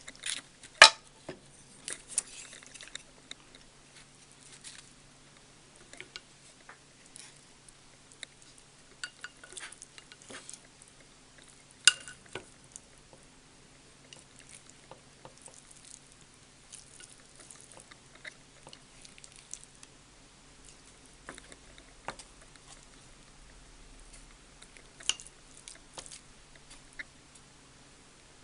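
Scattered light clicks and knocks over a faint steady hum, the sharpest about a second in and another about twelve seconds in.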